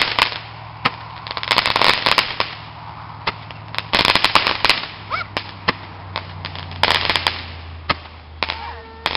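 Fireworks crackling high overhead: dense clusters of sharp pops and crackles at irregular intervals, with single cracks in between.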